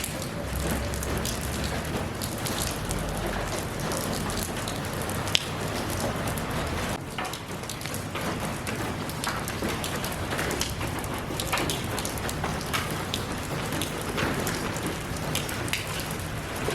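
Steady rain falling, an even hiss with many separate drops ticking on surfaces, one sharper drop about five seconds in.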